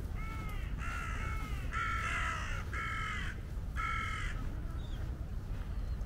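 A crow cawing five times, harsh calls about a second apart that stop about four seconds in, over a steady low rumble.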